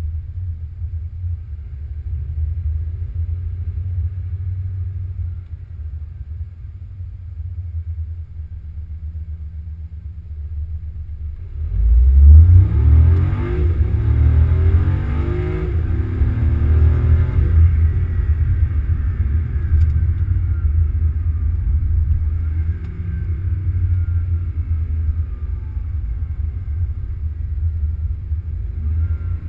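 BMW i8's turbocharged petrol engine running low and steady. About twelve seconds in, the car accelerates hard and the engine note rises in pitch several times in a row, through a series of upshifts. It then keeps pulling at a steady, louder level.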